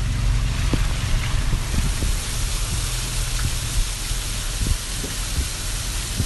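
Rain on a moving car, heard from inside, over a steady low hum of engine and tyres on the wet road, with scattered sharp raindrop taps.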